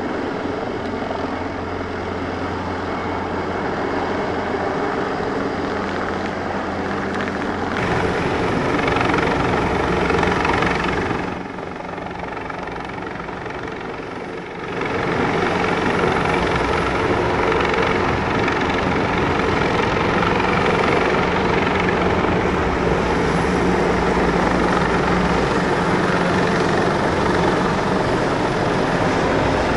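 Military helicopters flying close by: steady rotor and turbine noise from an EC725 Caracal and MD530G light helicopters, dropping quieter for about three seconds a little after ten seconds in.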